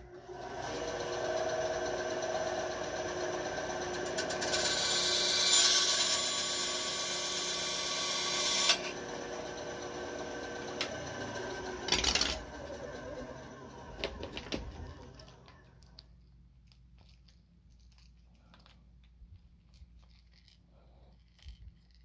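Small power tool running with a steady whine while cutting a length of brass tube. A loud hissing grind joins it for about four seconds as the cut goes through, then stops abruptly and the motor winds down. A few sharp clicks follow about twelve seconds in.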